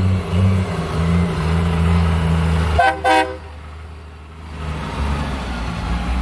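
Monster truck engine running low and heavy as the truck drives, its level swelling and easing. About three seconds in, a horn toots twice in quick succession. The engine then drops quieter and builds again near the end.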